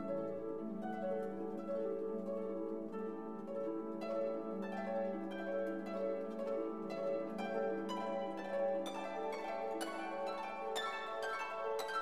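Background music: a gentle melody of plucked string notes, harp-like, with notes starting one after another at an even pace.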